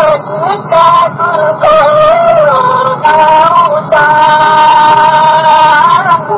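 Music with a singing voice that slides between ornamented notes and holds one long note from about four seconds in.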